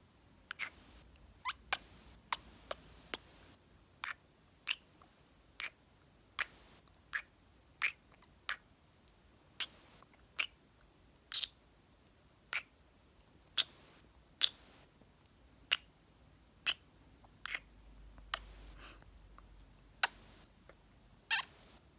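Kisses and mouth sounds: a run of short, sharp lip smacks and pops, roughly one or two a second, with a longer, louder smack near the end.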